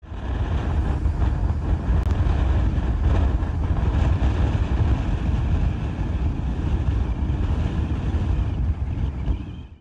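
Strong gusty wind blowing across the microphone: a loud low rumble with hiss that swells and eases with the gusts, fading out near the end.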